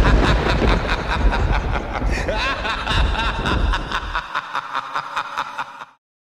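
Laughter over a deep rumble, breaking into rapid pulses near the end and cutting off suddenly about six seconds in.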